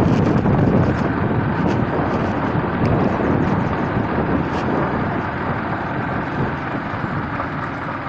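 Steady rushing noise of a moving vehicle, with wind on the microphone, slowly getting quieter.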